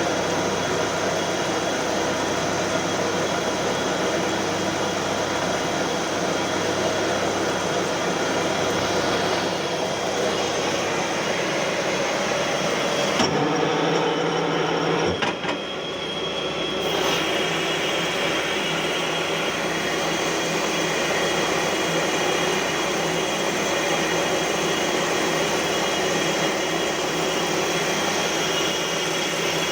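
CNC lathe running steadily while machining a metal flange, a dense mechanical hum with several steady tones. The sound changes for a few seconds about 13 seconds in, the highest pitches dropping out, then returns to the same steady running.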